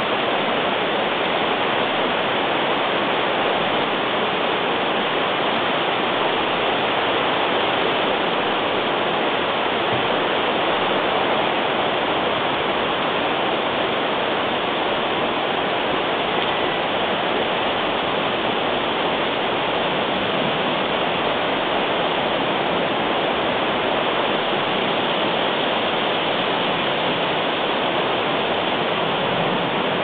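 Steady, even hiss with no distinct calls, steps or other events.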